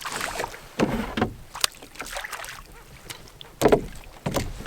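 Handling noises in a small fishing boat: scattered knocks and clicks, a few sharp ones about a second in and a louder one near the end, over a faint low rumble.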